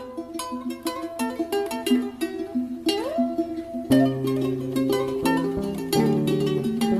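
Background music: quick plucked-string notes, with a bass line coming in about four seconds in.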